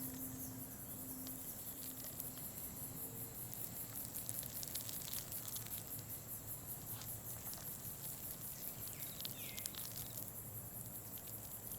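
Insects chirping in a high, evenly pulsing trill, a steady ambient forest background.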